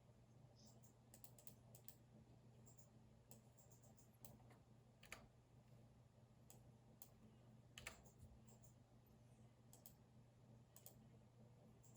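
Faint computer keyboard typing: irregular, scattered key clicks, with two sharper keystrokes about five and eight seconds in, over a steady low hum.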